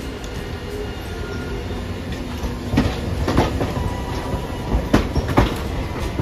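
Hiroshima Electric Railway 800-series streetcar rolling past close by with a low rumble. Its wheels clack over the track in two pairs of sharp knocks, one pair about halfway through and one near the end.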